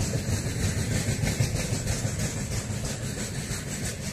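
Express passenger train's coaches and parcel vans rolling past at speed: a steady rumble of steel wheels on rail with a rapid clatter as the wheels cross the rail joints.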